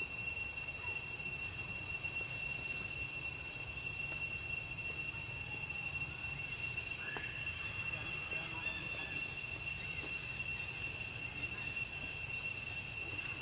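Steady high-pitched insect drone with a constant pitch, over a low outdoor rumble, with a few faint short chirps or squeaks about seven seconds in.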